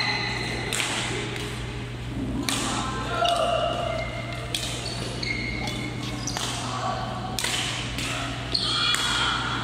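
Badminton rally: rackets striking the shuttlecock again and again, sharp hits every second or so, echoing in a large hall.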